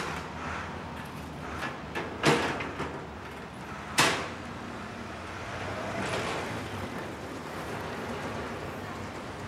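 Two sharp metal clanks, a little over two seconds in and again at about four seconds, from a street sweeper's metal litter handcart, its lid or bin being knocked shut, over steady street traffic noise.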